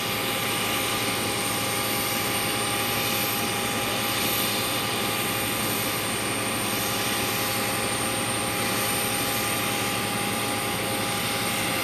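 Steady jet turbine noise at an airport apron: an even rushing roar with a constant high whine, unchanging throughout.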